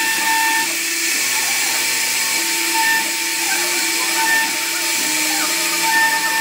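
CNC router carving wood: the spindle runs with a steady whine and hiss, while lower motor tones step up and down in pitch every half second or so as the machine moves between cuts.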